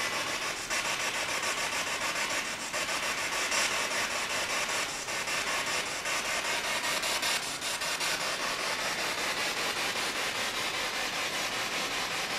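Spirit box radio scanning rapidly through stations: a steady rush of static chopped into quick, even pulses.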